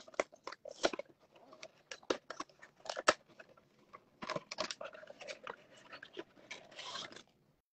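Cardboard booster box and its clear plastic insert being torn and pulled open by hand: a run of crackles, rips and clicks, busiest from about four seconds in.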